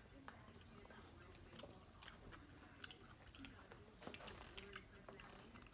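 Faint mouth sounds of a 12-month-old baby chewing food, with scattered small wet clicks.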